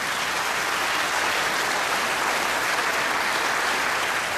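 Audience applauding, a steady wash of clapping that tapers slightly near the end.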